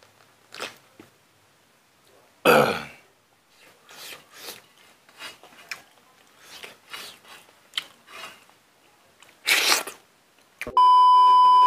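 A man eating rice with his fingers from a steel plate: soft mouth and hand sounds, broken twice by a loud, short throat-clearing sound, once early and once near the end. In the last second a click is followed by a loud, steady electronic beep.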